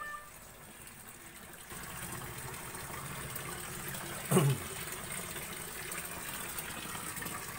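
Water running steadily into a shallow concrete fish tank, starting about two seconds in. About halfway through, one short, louder sound drops quickly in pitch.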